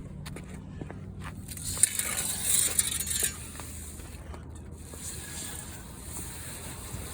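Scraping and rustling of window screen mesh and its frame being handled, loudest for a couple of seconds starting about a second and a half in, with a few light clicks, over a steady low hum.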